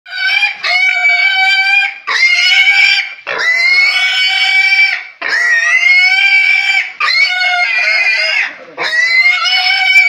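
Piglet squealing in distress as it is caught and held up by a hind leg: six long, loud, high-pitched squeals in a row, each about a second and a half, with only brief breaths between them.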